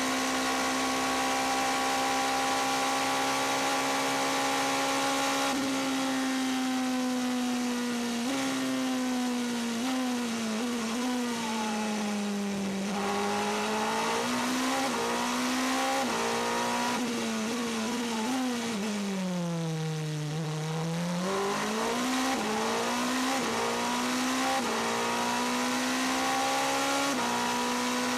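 Toyota TS040 Hybrid prototype's 3.7-litre V8 heard from the cockpit, held steady at high revs at full speed. It then slows twice, dropping in pitch through several downshifts under braking and climbing back up through the gears as it accelerates. Near the end it is back to a steady high note.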